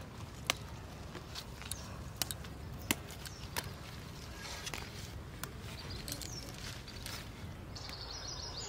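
Water spinach shoots being snapped off by hand among leafy plants: scattered short sharp snaps and rustles at uneven intervals over a low steady wind rumble. A bird chirps briefly near the end.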